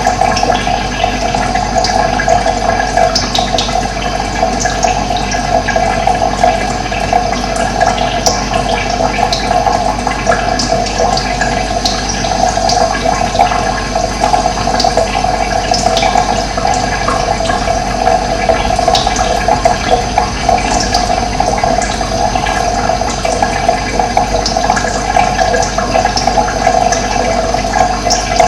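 Water running steadily, a continuous rushing flow, with small birds chirping briefly now and then above it.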